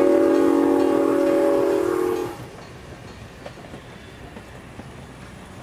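Locomotive whistle blowing one long chord of several tones, cutting off about two seconds in. Fainter train noise follows.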